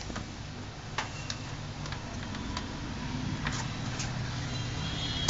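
A handful of small, sharp clicks and taps of a screwdriver on a laptop's plastic LCD bezel as the rubber screw covers are pried out, with the loudest click at the very end, over a low steady hum.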